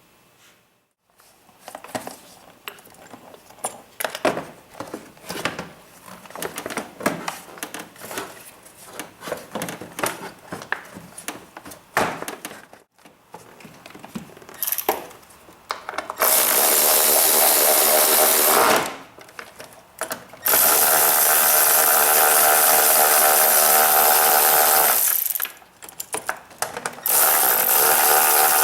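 Irregular clicks and knocks of hand work on parts. Then, about halfway through, a small electric power tool's motor runs loud and steady in three long stretches of a few seconds each, with short pauses between.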